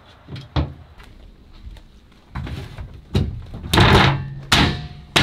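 Metal boat deck hatch lid being lowered and shut in its frame: a sharp knock about half a second in, then a run of heavier thunks and knocks in the second half, the loudest a little before four seconds in.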